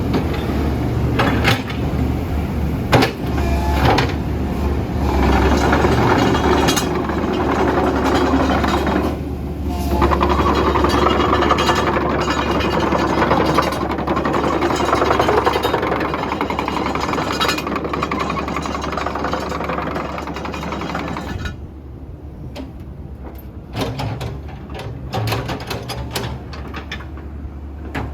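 Komatsu PC128US-8 hydraulic excavator being worked: its diesel engine runs under hydraulic load with sharp knocks and clanks from the arm and bucket, then drops back to a quieter idle a little over two-thirds of the way through, with a few clicks continuing.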